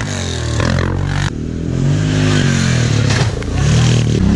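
ATV engines revving hard, the revs rising and falling repeatedly as the machines drive through mud, with an abrupt change a little over a second in.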